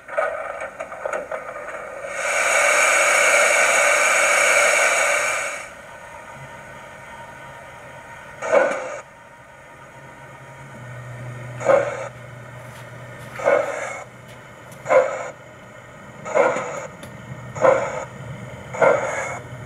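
Sound-fitted O gauge model of a GWR 57XX 0-6-0 pannier tank, its DCC sound decoder playing steam locomotive sounds. A long steam hiss starts about two seconds in and lasts about three and a half seconds. Then the model's motor starts a low hum, and single exhaust chuffs begin, coming gradually faster as the engine pulls away.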